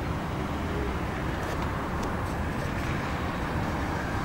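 Steady low rumble of outdoor city background noise, with a few faint clicks about one and a half to two and a half seconds in.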